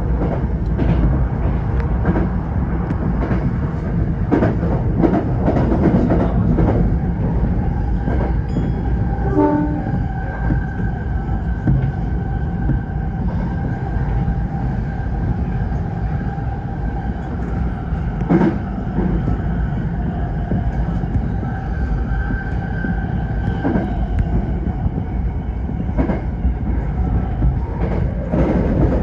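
Tokyo Metro 05 series subway train running at speed: a steady low rumble of wheels on rail, with scattered sharp clacks over rail joints. A steady whining tone runs through the middle of the stretch.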